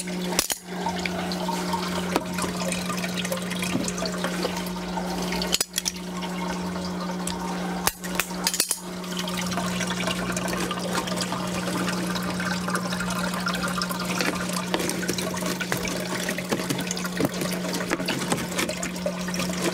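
Water splashing and trickling as it circulates through a recirculating deep water culture hydroponic system's buckets, over a steady low hum.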